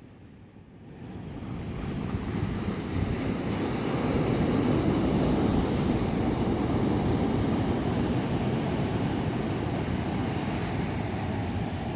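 Ocean surf washing on the shore, a steady rush of waves that swells up over the first couple of seconds and then slowly eases, with wind rumbling on the microphone.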